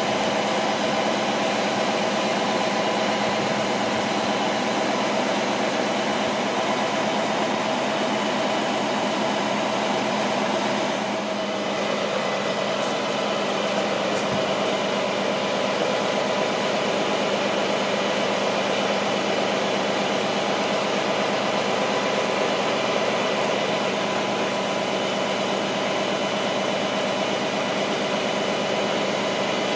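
Diesel engine of a Mercedes-Benz loader-crane truck running steadily, with a constant hum, driving the crane's hydraulics while it lowers a heavy load. It dips briefly about eleven seconds in.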